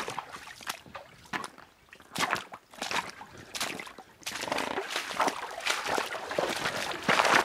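Footsteps of someone in waders wading up a shallow, rocky creek: boots splashing through water and knocking on stones, about one step every half-second, with more continuous sloshing in the second half, loudest near the end.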